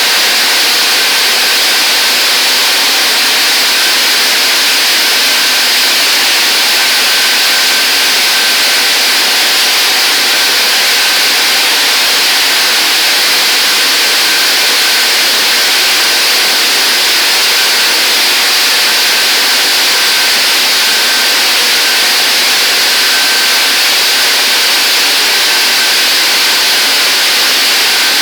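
Touchless automatic car wash machine running: a loud, steady rushing hiss with a faint high whine.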